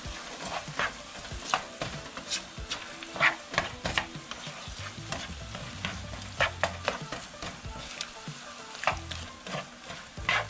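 Ground meat and diced onion sizzling in a nonstick frying pan while a plastic spatula stirs and breaks up the meat, with irregular scraping strokes against the pan.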